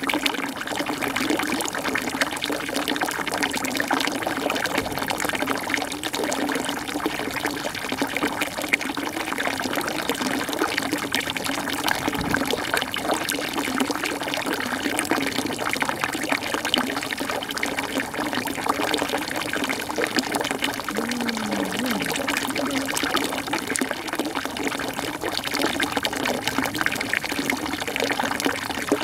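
Steady rushing of running water, an even noise that holds without change.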